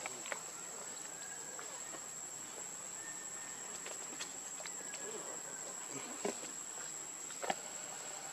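Steady high-pitched insect drone of crickets or cicadas, with a few short soft clicks and faint brief chirps over it; the sharpest click comes about three-quarters of the way in.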